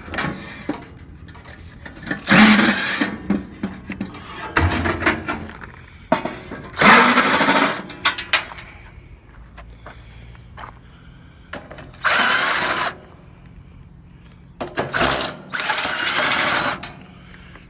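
A handheld power tool works on the metal of a pool heater in about five short bursts, each a second or two long, with clattering between them.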